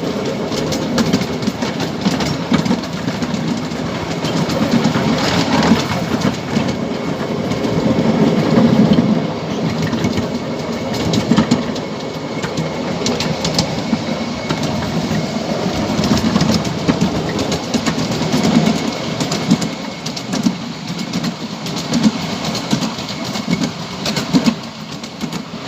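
Ride-on miniature railway train running along its track, heard from a passenger seat: a steady rolling clatter of the wheels with frequent sharp clicks over the rail joints.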